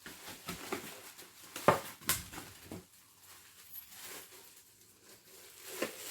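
Handling noises from a new table-top blender and its packaging: a few sharp plastic clicks and knocks, the loudest about two seconds in, with light rustling between them.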